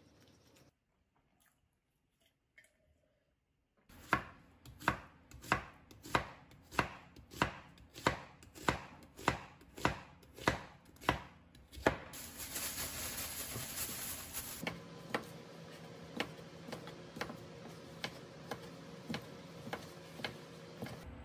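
Kitchen knife chopping on a cutting board in steady strokes, about two a second. Around halfway through, a loud hiss lasts a few seconds. It gives way to a steady hum under lighter, quicker chopping.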